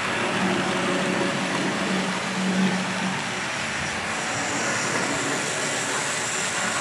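Model steam locomotives with log wagons running on a model railway: a steady whirr from their small electric motors and wheels on the track, with a low hum that comes and goes in the first half.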